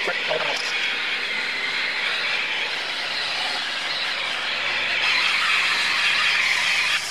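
Corded rotary polisher running with a wool pad buffing medium compound into oxidized fiberglass gel coat: a steady whirring hiss of motor and pad on the hull that cuts off near the end.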